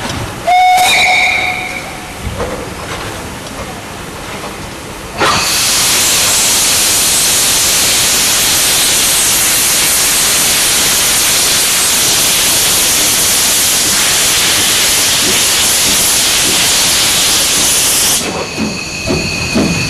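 Steam locomotive giving one short blast on its whistle, then its cylinder drain cocks letting off a loud, steady hiss of steam for about thirteen seconds. The hiss cuts off suddenly and the engine's first exhaust chuffs begin as it moves off.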